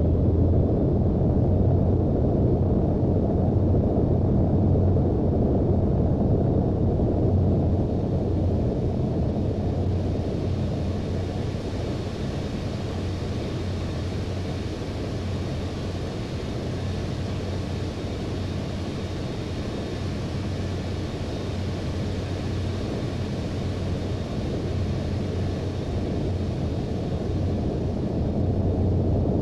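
Airbus A319 jet engines running: a steady low rumble with a fainter hiss above it that swells in the middle and eases off again.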